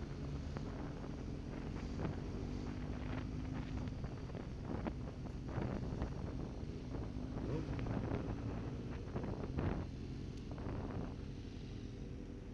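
Motorcycle engine running at a steady cruising speed while riding, with wind buffeting the microphone in gusts.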